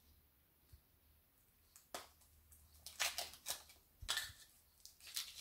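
Crinkling and rustling of a small wrapper in a child's hands as a Kinder Surprise egg toy is unpacked. It comes in irregular bursts that start about two seconds in and grow busier toward the end.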